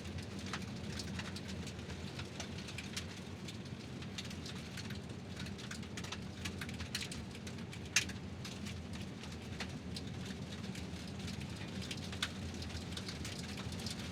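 Car tyres rolling over gravel: a steady low road rumble under a continuous crackle of stones popping and crunching, with a sharper crack about eight seconds in.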